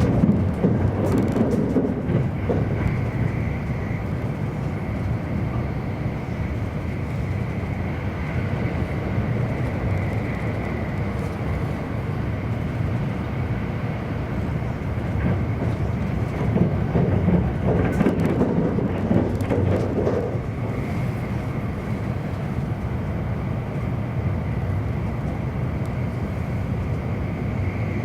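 E259 series Narita Express electric train running at speed, heard from inside a passenger car: a steady rumble of wheels on rail, which swells briefly near the start and again about two-thirds of the way through.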